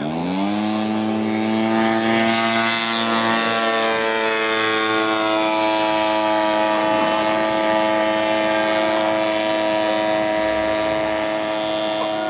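Engine and propeller of a radio-controlled model tow plane opening up to full throttle for takeoff: the pitch sweeps sharply up about the first second, then holds steady at full power while it tows a scale glider aloft.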